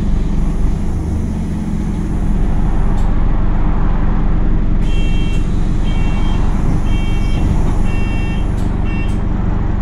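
Bus engine idling steadily, heard from inside the stationary bus. From about five seconds in, a beeper sounds five times, about once a second, as a bus's door-closing warning does.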